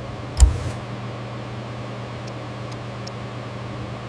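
A low thump about half a second in, then a steady machine hum and hiss of the kind a fan or ventilation unit makes.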